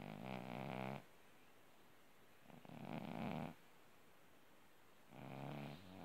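Orange tabby cat snoring in its sleep, one rasping snore about every two and a half seconds, each lasting about a second.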